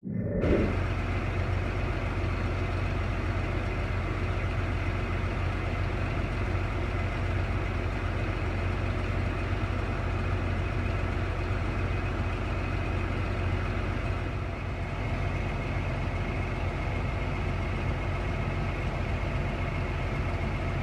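Tractor diesel engine running steadily, an even low drone, dipping slightly in level about 14 seconds in.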